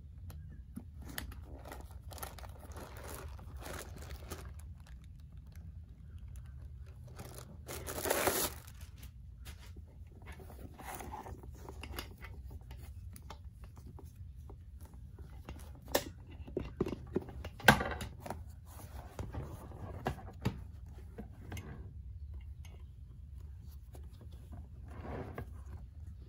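Close handling of a worn vintage Coach leather handbag: the stiff leather rubs, creases and rustles under the hands. A louder scraping rustle comes about eight seconds in, and several sharp clicks come in the middle of the stretch.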